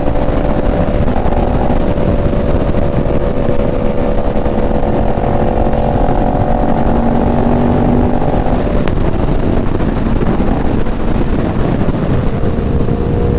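Sport motorcycle engine running at a steady cruise under heavy wind rush. About nine seconds in the engine note drops away as the throttle closes, then it comes back rising near the end as the bike accelerates again.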